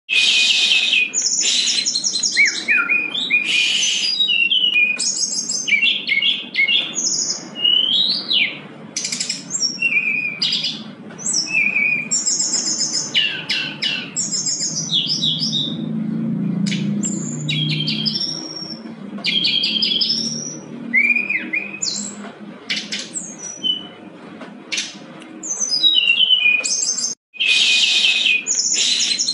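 Brown-chested jungle flycatcher in full song: a rapid, varied, unbroken run of high chirps, fast trills and short whistled glides. It cuts out for a moment near the end.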